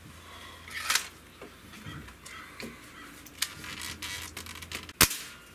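Hatsan 125 Sniper .177 breakbarrel air rifle with Vortex gas piston being loaded and fired: a loud clack about a second in as the barrel is closed, small clicks and knocks of handling as it is brought onto the bipod, then a single sharp shot near the end.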